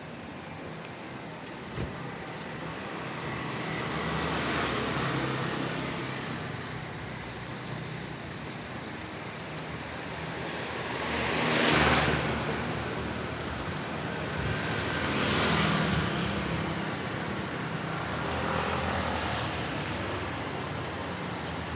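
Street traffic on a rainy day: vehicles pass one after another, each a swell of tyre hiss that rises and fades, four in all, the loudest about halfway through, over a steady low hum of engines.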